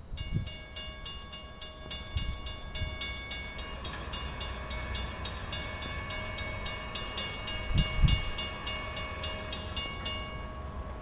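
Railroad grade-crossing warning bell ringing steadily at about three strikes a second, the signal that a train is approaching; it stops near the end. A few low thumps sound under it.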